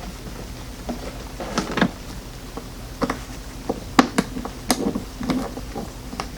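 Scattered small clicks and taps of an Allen key and screws being handled on the top of a DeWalt DW735 planer while its top screws are taken out, with a few sharper clicks about four to five seconds in.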